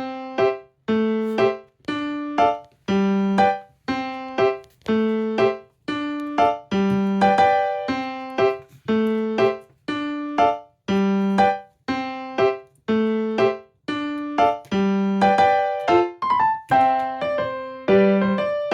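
Background music: a simple piano or electric piano tune of struck chords at a steady, even pace, about two a second.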